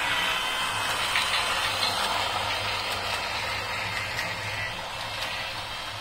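Battery-powered remote-control toy locomotive running on plastic track: a steady motor whir with its wheels rattling and clicking over the track.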